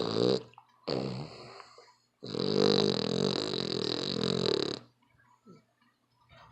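Pit bull snoring in its sleep: a snore ending just after the start, another about a second in, then a long snore of about two and a half seconds, each breath a pitched, rattling drone.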